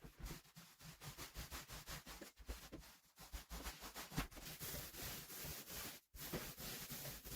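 Paint roller rolling over a ceiling, a faint continuous sticky rubbing with quick crackles, broken off briefly about six seconds in.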